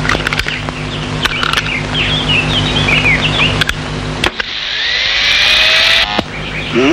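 Electric shaver buzzing steadily as it is run over a beard, with high chirps over the buzz. About four seconds in it gives way to a louder whine that rises in pitch, and near the end a tone slides downward.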